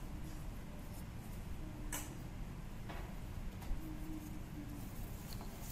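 A few light clicks and taps from a handmade keychain with a metal key ring being turned over in the hands, over a steady low background hum.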